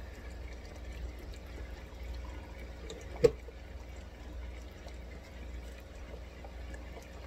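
Water poured slowly into a glass fishbowl to top it off, a gentle trickle with drips, over a steady low hum. One sharp knock about three seconds in.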